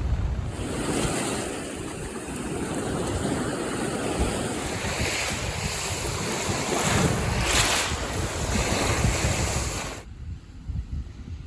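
Sea waves washing onto the shore, swelling and easing, with wind buffeting the microphone as a heavy low rumble. The sound cuts off abruptly about ten seconds in.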